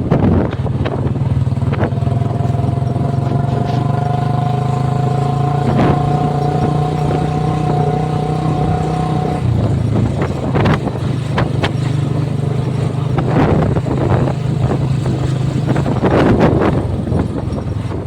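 Royal Enfield Bullet single-cylinder motorcycle engine running under way, with several sharp cracks scattered through. A steady higher-pitched tone sounds over the engine from about two seconds in and stops suddenly about halfway through.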